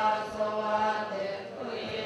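Buddhist ritual chanting: voices reciting on held notes over a steady low pitch.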